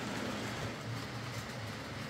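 OO gauge model train running steadily on the layout track: the Hornby Class 56 diesel's motor humming and its wagons' wheels rolling over the rails. The motor runs again now that its brush springs have been stretched to put pressure back on the commutator.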